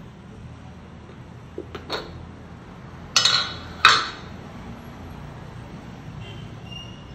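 Aluminium saucepan and lid knocking lightly a few times, then two loud metallic clanks with a short ring about three seconds in, as the lid is lifted off the pot.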